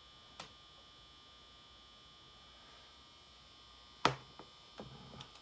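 Steady electrical buzz and hum from the shop's fluorescent lights. A short click comes about half a second in, and a sharp, louder knock about four seconds in, followed by a few small clicks.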